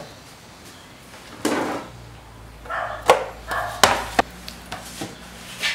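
Knife work and hands handling raw pork on a wooden cutting board, with a scrape, then several sharp knocks around the middle as a piece of meat is moved into a metal tray. Short bark-like calls sound in the background a few times.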